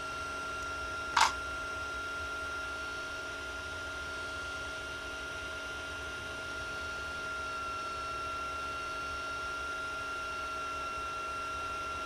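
Steady electrical hum with a thin high whine, and one sharp click about a second in.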